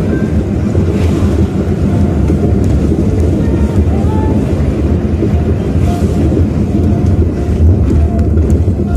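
Steady low road and engine rumble inside a car's cabin as it drives along.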